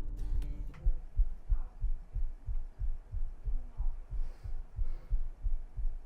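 A person's heartbeat picked up close by a microphone: regular low thumps in lub-dub pairs, steady throughout.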